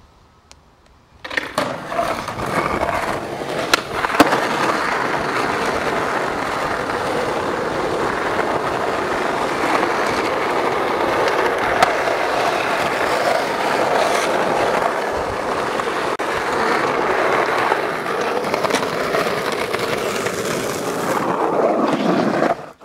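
Skateboard wheels rolling on concrete, a steady close rolling noise broken by a few sharp knocks of the board. It starts about a second in and cuts off suddenly near the end.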